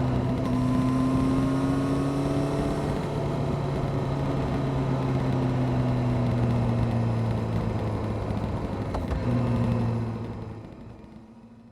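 Honda CBR600F Sport's inline-four engine running with an aftermarket Delkevic exhaust, its note having just dropped as the throttle closed, then holding a fairly steady, slowly easing pitch before fading out near the end.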